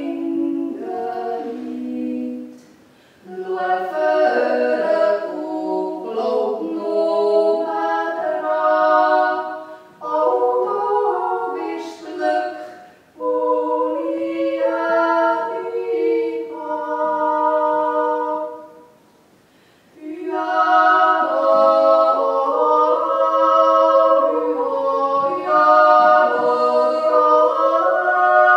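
Two women's voices singing a Swiss-German song a cappella as a duet in two-part harmony, with long held notes. The singing breaks off briefly a few times and pauses for about a second and a half near two-thirds of the way through before both voices come back in together.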